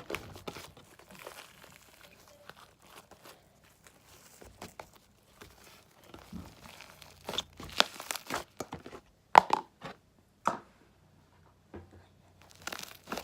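Fluffy shaving-cream slime being squeezed and stretched by hand, making irregular clicks and pops, with a few louder snaps in the second half.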